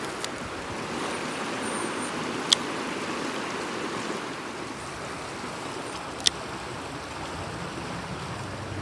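Mountain stream water running steadily over rocks, with two sharp clicks a few seconds apart.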